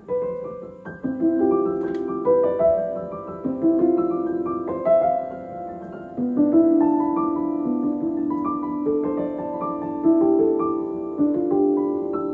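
Background instrumental music: a melody of notes over chords, played throughout.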